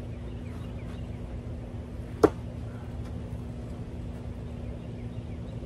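A thrown fixed-blade knife, a NedFoss Boar, hits a wooden throwing board once, a single sharp knock about two seconds in, over a steady low hum.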